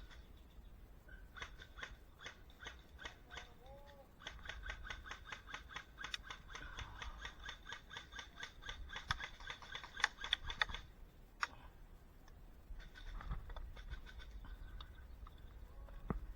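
Airsoft guns firing in bursts of rapid, regular clicks, about six a second. The longest run lasts from about four to eleven seconds in, with shorter runs before and after.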